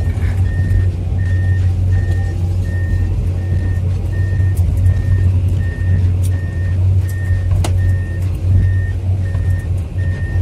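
Komatsu PC210-10MO excavator's diesel engine running with a steady deep drone as the machine travels, while its travel alarm beeps evenly, about one and a half beeps a second. A single sharp click stands out about three-quarters of the way through.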